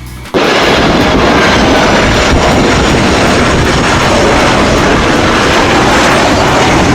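Jet airplane sound effect: a loud, steady roar that starts suddenly just after the start and cuts off abruptly near the end, covering the background music.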